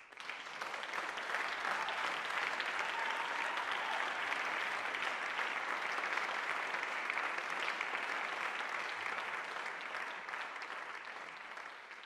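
Audience applause breaking out suddenly at the end of an a cappella song, swelling within about a second into steady clapping, then tapering off near the end.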